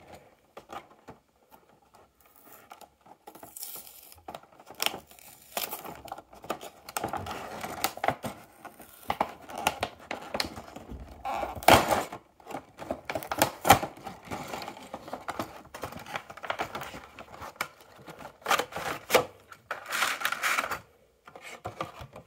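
A toy-car multipack being opened by hand: irregular tearing, scraping and crinkling of the cardboard box and its clear plastic tray, with scattered sharper clicks and snaps, loudest a little before the middle and again past two-thirds through.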